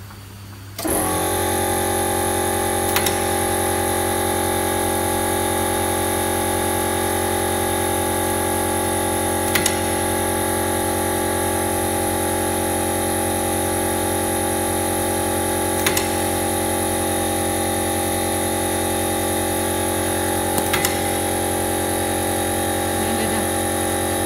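Boilie-rolling machine (BoilieRoller MAXI) switching on about a second in and then running with a steady motor hum and whine while it rolls bait dough into boilies. A short sharp click sounds roughly every six seconds.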